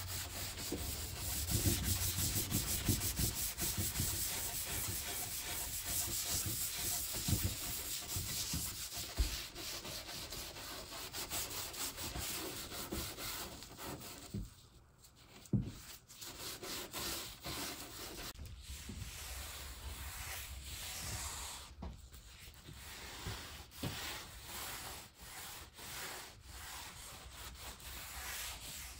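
A soft pad rubbing oil finish (Walrus Oil) into the wood of chestnut doors, a continuous scrubbing hiss of quick strokes, with a brief pause about halfway through.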